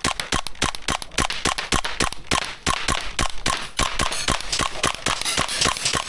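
Airsoft guns firing rapid, irregular strings of sharp clicking shots, several a second without a break: suppressing fire.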